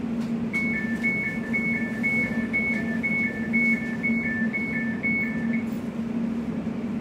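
Door-closing warning of a Class 345 train: an alternating high-low electronic beep, about two pairs a second for about five seconds, over the train's steady hum, signalling that the doors are about to close before departure.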